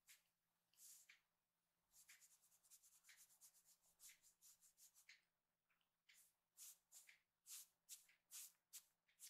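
Faint, scratchy rustling strokes: a quick run of them about two seconds in, then separate strokes roughly twice a second near the end.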